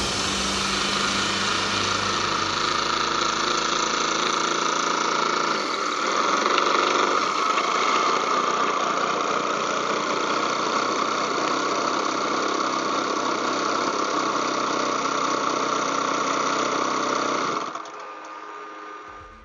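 Twin-cylinder two-stroke DLE 111 boxer gasoline engine of a large RC model plane, with a Krumscheid exhaust, running steadily at low speed on the ground. It gets a little louder about six seconds in and stops abruptly near the end.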